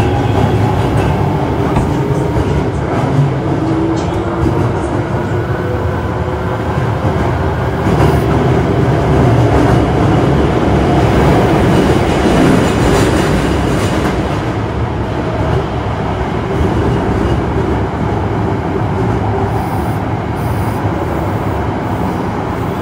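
Osaka Metro 66 series train running, with the whine of its Toshiba IGBT traction inverter and motors, several steady tones that glide slowly, over the rumble of wheels on rail.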